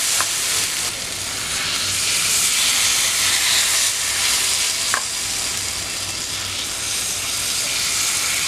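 Finger-millet (ragi) dosa batter sizzling steadily on a hot cast-iron tawa as more batter is poured over it, with a light tick about five seconds in.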